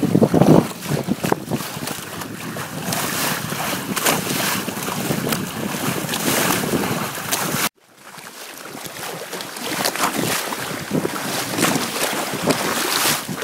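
Wind buffeting the microphone and water rushing along the fibreglass hull of a small sailboat under sail. About eight seconds in the sound cuts out abruptly, then comes back as water splashing and rushing past the hull close by.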